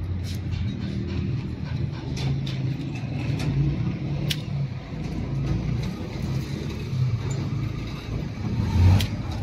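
A motor vehicle engine running steadily, rising and falling a little, with a few sharp clicks over it and a louder thump near the end.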